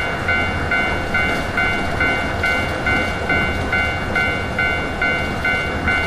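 Japanese level-crossing warning bell ringing its steady 'kan-kan', a little over twice a second, over the rumble of a train passing.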